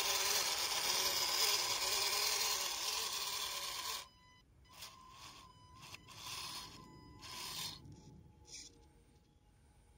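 The electric drive motor and gearbox of an RC scale Opel Blitz 4x4 truck whining at varying pitch as it drives through undergrowth. It cuts off suddenly about four seconds in, leaving only a few short, faint bursts.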